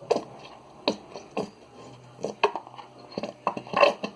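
Conditioner being added to a small plastic pot of slime activator: a string of short knocks and clatters from the bottle and pot, with a longer, louder one near the end.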